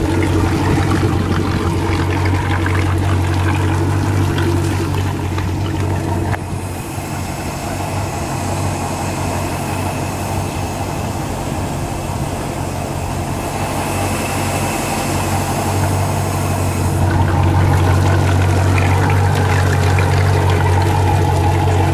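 Boat's sterndrive engine idling steadily on a garden-hose flushing attachment, fresh water spraying and splashing onto the pavement around the outdrive. For several seconds in the middle the low engine hum drops back and a hiss of water comes up, then the hum returns.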